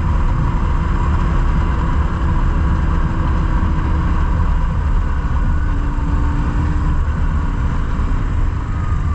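BMW R1150GS Adventure's boxer-twin engine running steadily while the motorcycle rides along, mixed with constant wind rush on the bike-mounted microphone.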